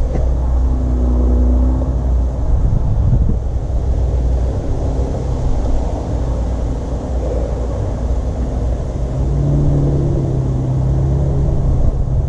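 Low, steady rumble of outdoor traffic and wind on the microphone, with a passing vehicle's engine hum rising and fading twice.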